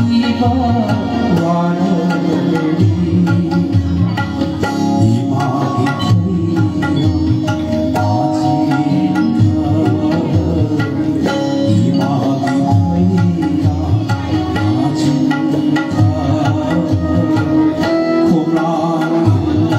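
Live folk-style music: tabla played in a steady rhythm with acoustic guitar and an electronic keyboard.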